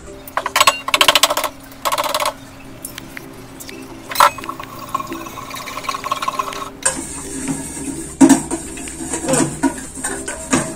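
A wire whisk beating egg in a stainless steel bowl: rapid clinking of the wires against the metal and sloshing of the liquid egg. It comes in short bursts at first, with a single sharp knock about four seconds in, and turns steady and continuous in the second half.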